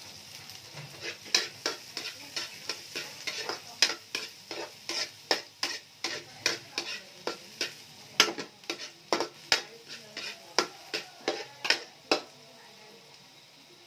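Long metal spatula scraping and clinking against a metal wok as garlic is stirred in hot oil, with a light sizzle underneath. The strokes come about two or three a second and stop near the end.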